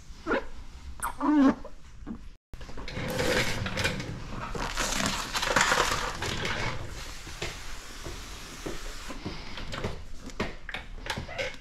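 Wet paint protection film being handled and stretched over a car bumper: plastic crackling and rubbing, with a few squeaks near the start. Midway there is a hiss lasting a few seconds from the spray gun.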